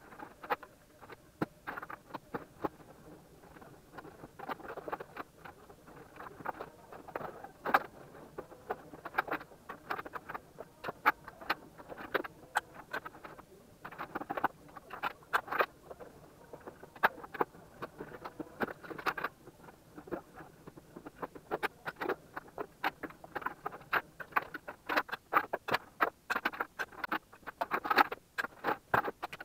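Hi-fi equipment and cables being handled and unplugged, sped up: a fast, dense clatter of small clicks, knocks and rustles.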